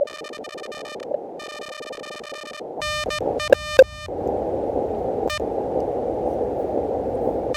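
Morse code sidetone from an Elecraft KH1 transceiver as CW is keyed: a buzzy tone switching on and off in short and long elements. Under it runs the steady hiss of the receiver's band noise, which grows louder about three seconds in.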